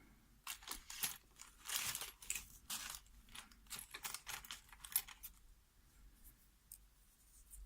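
Small metal parts clicking and jingling as a pin-tumbler lock and metal tools are handled, a quick irregular run of light taps that thins out to a few faint ticks after about five seconds.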